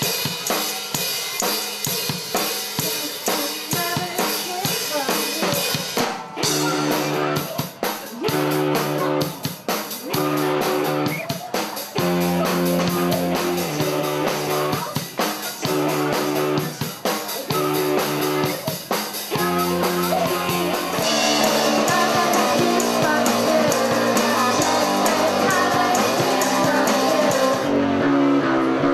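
Rock band playing live: a drum kit with bass drum and snare, with electric guitar and bass guitar, in a steady repeating groove. The band gets fuller and louder about two-thirds of the way through.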